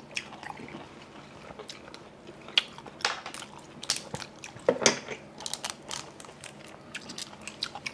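Close-miked eating of steamed seafood: irregular sharp cracks and crunches of biting and chewing, with the loudest few in the middle.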